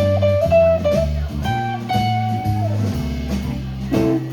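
Live electric blues band playing: a lead guitar plays sustained single notes, one held note bending down in pitch, over a bass line and drums.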